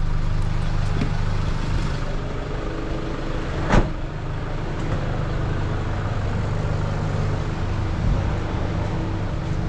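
Vehicle engine idling steadily with a low hum, with one sharp clunk about four seconds in.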